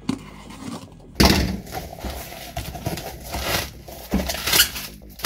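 A cardboard shipping box being opened by hand: packing tape pulled off and the flaps folded back, then bubble wrap handled inside. From about a second in it is a continuous run of irregular rasping and crinkling noises.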